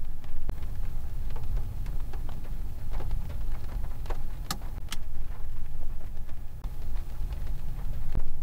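Field recording of steady rain: a hiss of falling rain over a deep low rumble, with scattered drops ticking and two sharper drop hits about four and a half seconds in.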